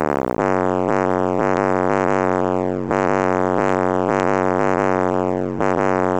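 Brand-new car audio subwoofers, not yet broken in, playing a bass-heavy track loudly: a steady low drone with a falling sweep about every second and a half.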